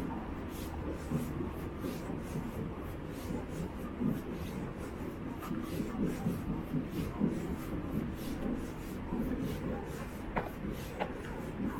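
Footsteps of someone walking a trail, a soft scuffing about twice a second, over a steady low rumble on the microphone.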